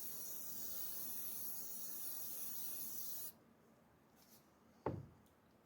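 Steady hiss of gas escaping from a small portable camp gas stove's burner, turned on but not yet lit, which cuts off abruptly a little past halfway. A single knock follows near the end.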